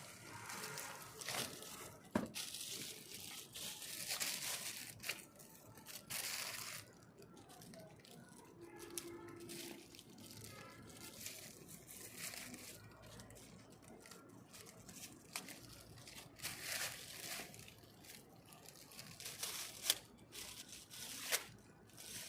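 Unpacking an air gun from its box: packing material rustling, crinkling and tearing in irregular bursts, with a few sharp clicks and knocks from handling.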